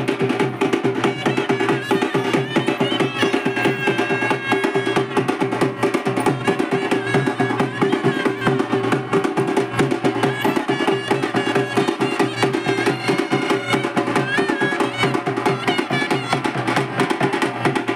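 A festival band playing for Bathukamma: fast, dense drumming with a melody line above it.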